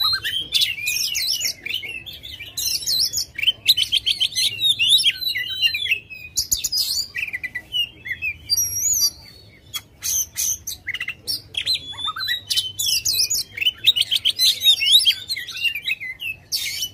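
Oriental magpie-robin (kacer) singing a loud, full, aggressive song: rapid, varied strings of whistles, trills and harsh chatters, with a thinner stretch of a few whistles about halfway through.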